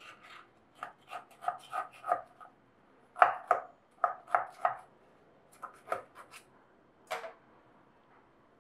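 A table knife clicking and scraping against the rim of a small steel baking tin as it is run around a baked burger bun to loosen it for unmoulding. The clicks come in quick runs with short pauses, each with a metallic ring, and one last knock comes about seven seconds in.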